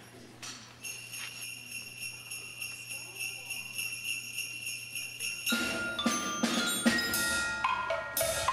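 Sleigh bells shaken steadily in a continuous jingle. About five and a half seconds in the percussion ensemble comes in: struck xylophone and bell notes with drum hits.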